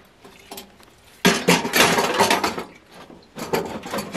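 Metal clattering as the red fuel tank of a Coleman 425 camp stove is set down inside the stove case: a dense clatter starting about a second in and lasting about a second and a half, then a few lighter knocks near the end.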